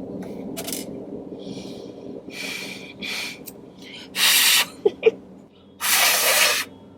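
A person breathing out hard and sighing several times in frustration, two of the breaths much louder than the rest, over a steady low hum.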